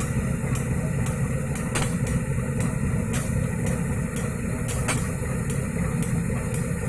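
A large diesel engine running steadily with a low rumble, with repeated sharp ticks over it.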